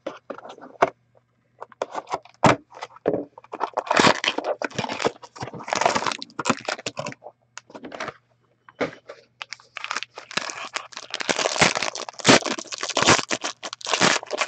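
Trading-card box being opened and its foil card pack crinkled and torn open by hand: a long run of crinkling and crackling wrapper, with sharp cracks and brief pauses.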